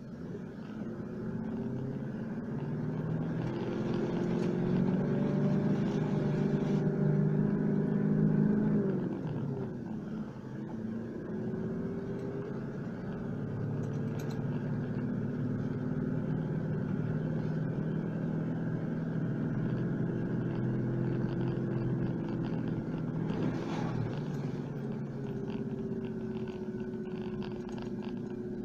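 Four-wheel drive's engine pulling along a muddy dirt track, its note climbing over the first several seconds, falling away sharply about nine seconds in, then running steadily, with a couple of brief knocks.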